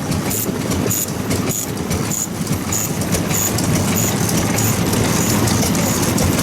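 Old stationary engines running steadily, with a sharp click repeating about every 0.6 seconds over the low engine sound.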